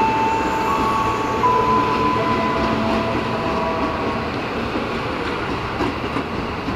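KRL Commuter Line 205-series electric multiple unit running past along the platform: a steady rolling noise of wheels on rails. High whining tones step in pitch during the first few seconds and then fade.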